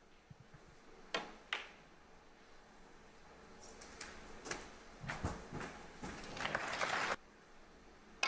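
Snooker balls and cue clicking on the table during a break: a few separate sharp knocks as the cue strikes the cue ball and the balls meet, over low arena background.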